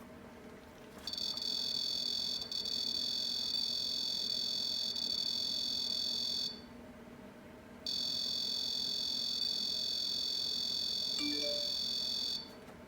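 High-pitched electronic alarm tone going off and on: a steady beep that sounds for about five seconds, stops for a moment, then sounds again for about five seconds.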